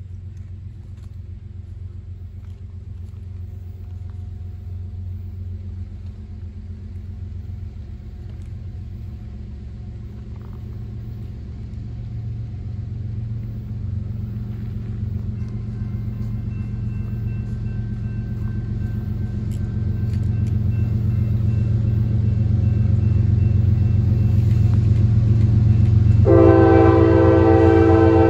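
Norfolk Southern diesel freight locomotive approaching with a RoadRailer train, its low rumble growing steadily louder. Near the end its horn sounds loudly in a long, steady multi-note chord.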